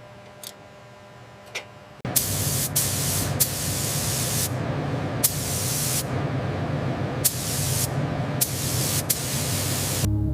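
High-pressure spray hissing in repeated blasts of about a second each, starting suddenly about two seconds in and cutting off near the end. Two faint clicks come before it.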